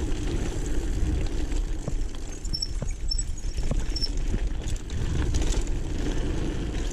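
Mountain bike rolling down a dirt trail: steady low tyre rumble and wind buffeting on the chest-mounted camera's microphone, with scattered small knocks and rattles from bumps in the trail.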